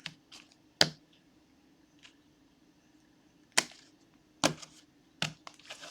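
Trading cards being handled and set down on a table: a handful of sharp taps and clicks at irregular intervals, with a faint steady hum beneath.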